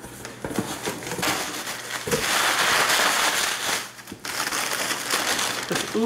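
Plastic bubble wrap and crumpled packing paper crinkling and rustling as they are pulled out of a cardboard box. It is loudest for a couple of seconds in the middle, with a short lull about four seconds in.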